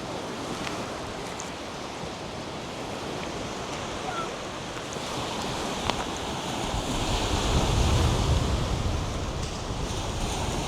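North Sea surf washing onto a sandy beach as a steady rush, with wind on the microphone. It grows louder with a low rumble about seven seconds in, then eases.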